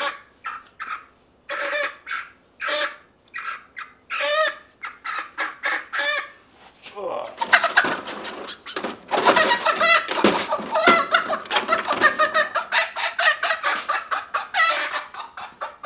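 Young chickens calling in short separate cries, then squawking loudly and without pause from about seven seconds in as they are grabbed and lifted, with wings flapping.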